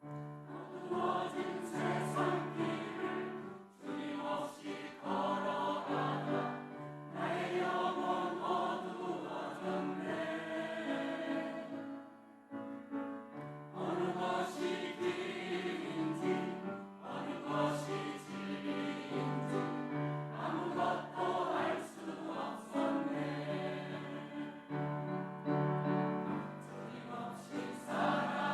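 Church choir singing an anthem in phrases, with a brief pause between phrases about twelve seconds in.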